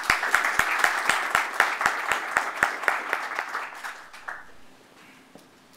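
Audience applauding, with one set of claps close by at about four a second standing out; the applause fades out a little over four seconds in.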